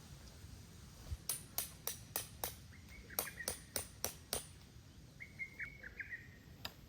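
A run of about ten sharp, evenly spaced knocks, roughly three a second, with a small bird chirping during and after them, and one more knock near the end.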